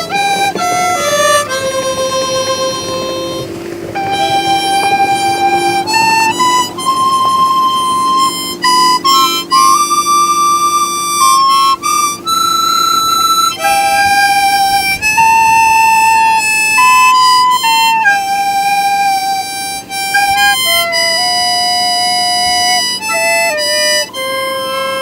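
Instrumental music: a single wind-instrument melody of held notes stepping up and down, over a steady low drone.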